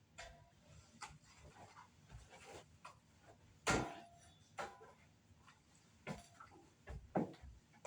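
Scattered soft knocks and clicks of things being handled, the loudest about four seconds in.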